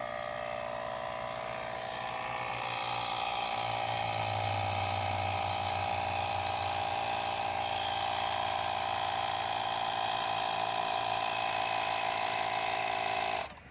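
AUTO-VOX 12-volt portable tire-inflator air compressor running steadily with an even mechanical hum, then switched off abruptly near the end.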